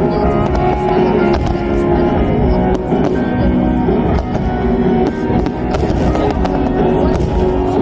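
Music plays steadily with aerial firework shells bursting over it: repeated irregular bangs and crackles.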